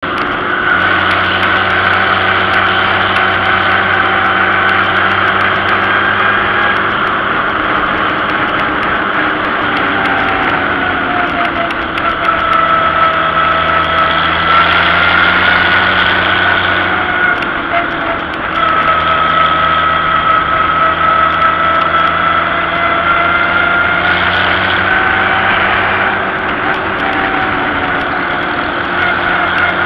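Vintage farm tractor's engine running steadily while the tractor is driven along a road, its pitch dipping and rising a little a few times as the engine speed changes.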